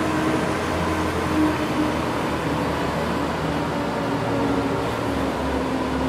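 Zamboni ice resurfacer running steadily: a constant low engine hum under an even hiss, its tone shifting slightly now and then.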